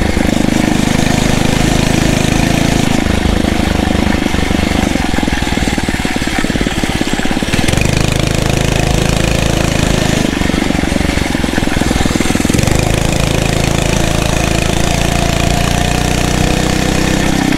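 Phatmoto Rover 79cc four-stroke motorized bicycle engine running while riding, its engine speed rising and falling, with wind noise over the microphone.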